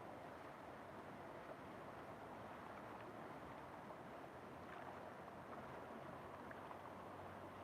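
River water flowing, a faint steady rush with a few brief faint ticks.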